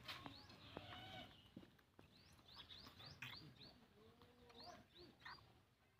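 Near silence with faint bird chirps: a scatter of short, high, falling chirps, most of them in the second half.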